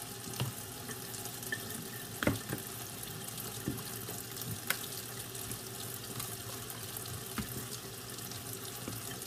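A spoon clicking and scraping in a plastic container as shrimp are stirred into a thick cornstarch batter paste, over a steady hiss.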